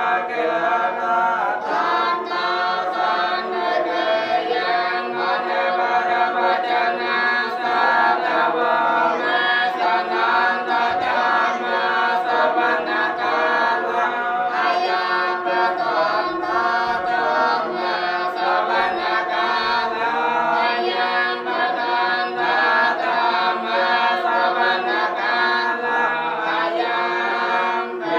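Buddhist monks chanting blessing verses together in a steady, continuous group chant.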